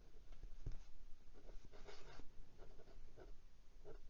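Hong Dian 920 fountain pen with a fine steel nib writing in cursive on Clairefontaine 90 gsm paper: a quick, irregular run of short, soft strokes of nib on paper.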